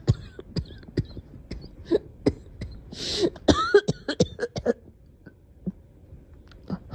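A girl coughing in a run of short, sharp coughs, coming thickest about three to five seconds in, then a brief lull near the end.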